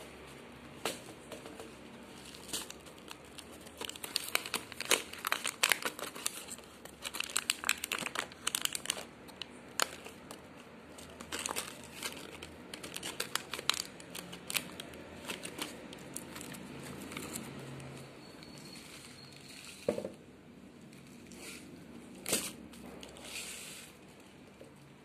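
Foil inner pack of a cardboard tea carton crinkling as it is handled: a run of sharp crackles, thickest from about 4 to 14 seconds in, then scattered until near the end, with a soft knock about 20 seconds in.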